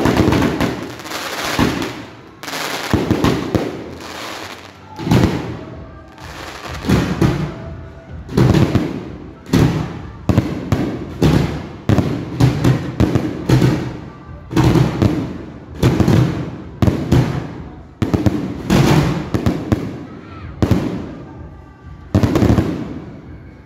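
Fireworks display: aerial shells bursting overhead in a rapid string of loud bangs, about one to two a second, with brief lulls between volleys.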